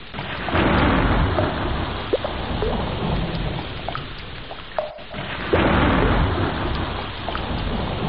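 Rain falling on water, with drops landing in short rising blips, and two rolls of thunder about five seconds apart: the first about half a second in, the second just after the middle, each fading away over a few seconds.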